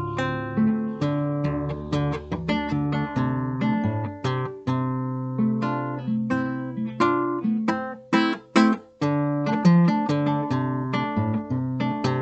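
Solo classical guitar played fingerstyle: a plucked melody and chords over a moving bass line, with a few short chords cut off sharply about eight to nine seconds in.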